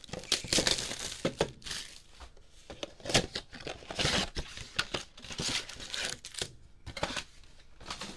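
A cardboard Bowman Mega Box of trading cards being torn open by hand and its wrapped packs pulled out: irregular tearing and crinkling, with a sharp click about three seconds in.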